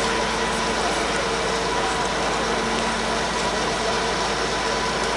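DR class 120 'Taigatrommel' (Soviet-built M62) diesel locomotive's two-stroke V12 diesel engine running steadily and loud, held on its applied brakes as a load test.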